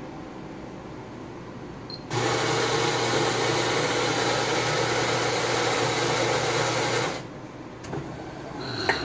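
Dr.coffee F11 super-automatic espresso machine's built-in grinder grinding beans for an espresso: a steady motor-and-grinding noise that starts about two seconds in, runs for about five seconds and stops abruptly, leaving a quieter machine hum with a light knock near the end.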